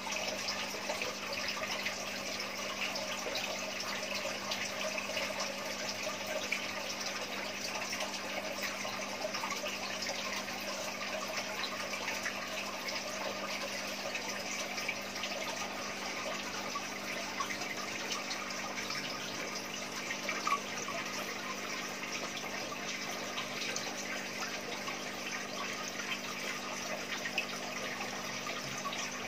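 Aquarium water circulation: a steady rush of splashing water from the tanks' filtration, with a steady low hum underneath.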